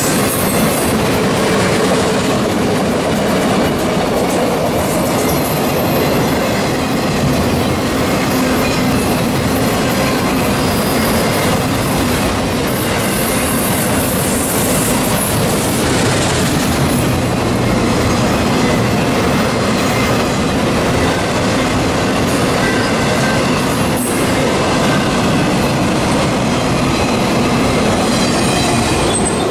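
Autorack freight cars rolling past at close range: a loud, steady rush of steel wheels on rail.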